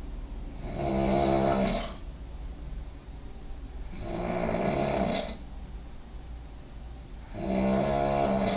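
A sleeping person snoring heavily: three loud snores about three seconds apart, each lasting just over a second.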